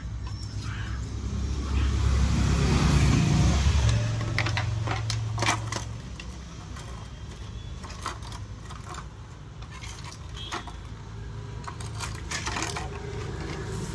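Small metal tools and parts clicking and clinking while a small electronic device is taken apart by hand, in scattered taps. A low hum swells in the first few seconds and fades out about six seconds in.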